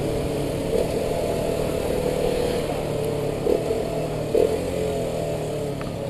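Motorcycle engine running steadily while the bike is ridden through traffic, with wind and road noise at the handlebars.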